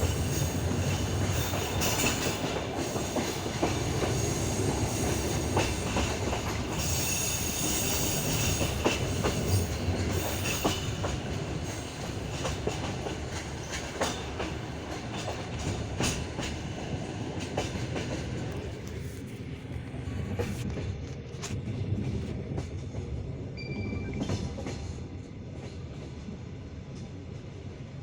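Passenger railcar wheels clattering over rail joints and station switches as the train pulls away, heard from inside the carriage, with irregular sharp clicks over a steady rumble. A high squeal sounds during the first ten seconds, and the noise grows quieter and duller after about twelve seconds.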